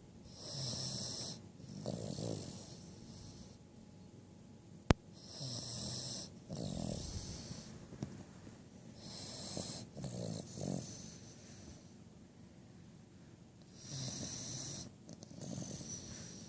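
Five-month-old Cavalier King Charles spaniel puppy snoring in her sleep: four slow breaths about four seconds apart, each snored on the way in and again on the way out. One sharp click sounds about five seconds in.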